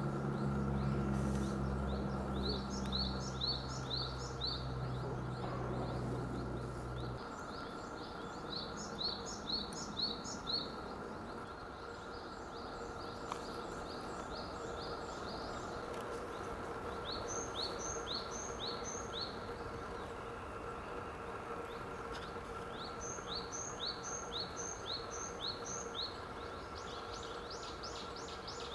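A songbird singing: short phrases of quick, high, sweeping notes, each phrase repeating one note four to six times, given again and again. Under it runs a steady background hum, and a low drone that stops about seven seconds in.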